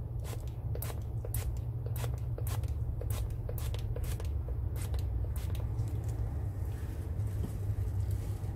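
Oil sprayer spritzing cooking oil onto a raw slab of pork neck: a quick, uneven run of short spritzes for about six seconds, over a steady low hum.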